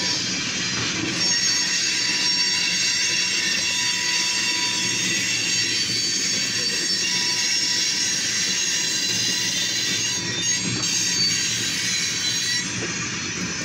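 Wheels of a train of covered grain hopper cars squealing as the cars roll past, a steady shrill squeal of several high tones over a low rumble. It eases off a little near the end.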